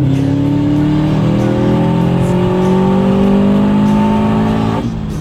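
Subaru STi's turbocharged EJ257 flat-four, fitted with a 44mm external wastegate vented to atmosphere, pulling hard through a gear with its pitch rising steadily, then the note dropping away near the end as the throttle lifts for a shift.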